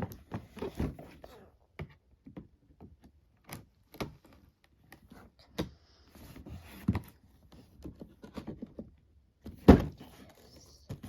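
Toy box and its packaging being handled: scattered taps, knocks and light rustling, with one louder thump near the end.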